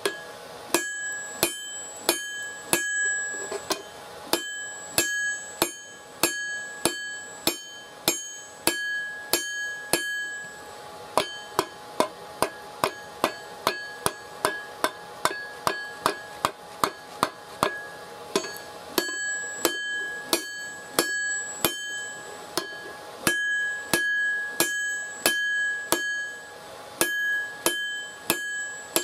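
Forging hammer striking red-hot steel on an anvil, about two to three blows a second, each blow leaving a bright metallic ring. For a stretch in the middle the blows come without the high ring, duller and a little faster.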